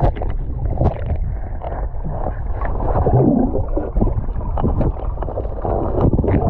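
Water splashing and churning in a river, with wind rumbling on the microphone throughout.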